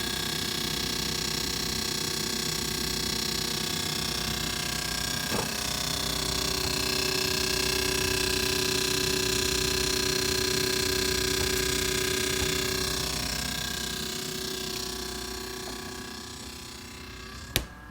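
Refrigerator running loudly: a steady mechanical whir with several held tones over a hiss, fading a little toward the end, then a sharp click. The owner takes the noise for a fault left by a repair.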